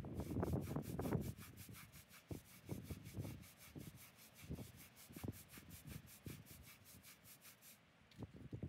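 Bristle hand brush scrubbing the face of a gravestone. Quick back-and-forth strokes for about the first second give way to slower, separate strokes, with a short pause near the end.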